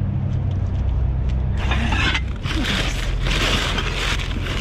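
Rummaging through dumpster trash: loud rustling and crinkling of plastic bags and packaging that starts about one and a half seconds in. Under it, a steady low engine hum of an idling vehicle, strongest in the first half.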